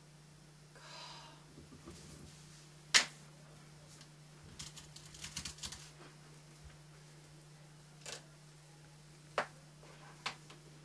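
Typing on a laptop keyboard: a quick run of key clicks around the middle, with a few single sharp clicks before and after, the loudest about three seconds in. A low steady hum runs underneath.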